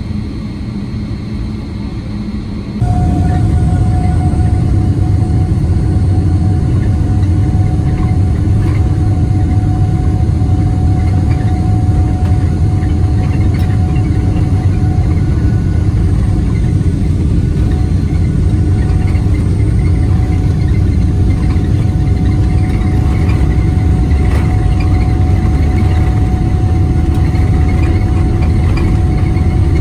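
Steady jet-engine and rolling rumble heard inside the cabin of a Boeing 777-300ER moving along the ground, with a faint steady whine over it. It gets suddenly louder about three seconds in and then stays level.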